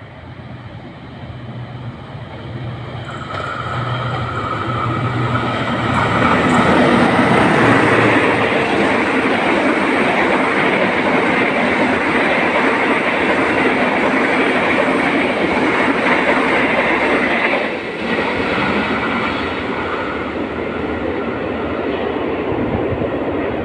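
A diesel locomotive hauling a train of stainless-steel passenger coaches approaches and passes. A low engine drone grows louder over the first few seconds, then gives way to a steady rumble of wheels on rail as the coaches go by.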